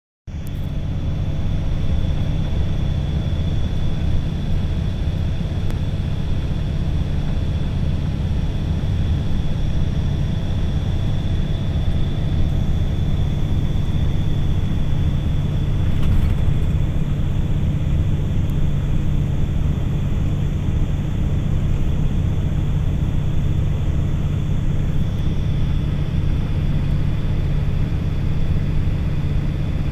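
A steady, low mechanical rumble with a constant hum, unchanging throughout.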